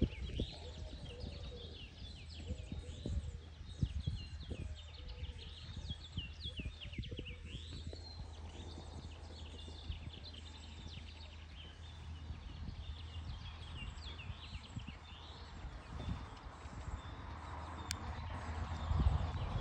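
Small birds chirping over and over, with a steady low hum beneath. A horse's hoofbeats on arena sand are faint through the middle and grow louder near the end as the horse comes closer.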